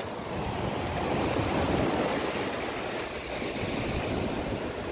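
Sea surf washing up a sandy beach: a steady rush of waves.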